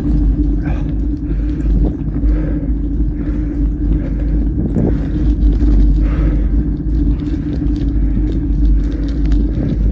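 Mountain bike being ridden: a steady rumble of wind on the microphone mixed with tyres rolling, with a continuous low hum underneath.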